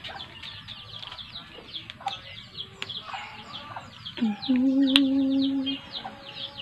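Many small birds chirping busily, a rapid run of high, short falling chirps. About four seconds in, a louder, lower call scoops up in pitch and holds steady for over a second.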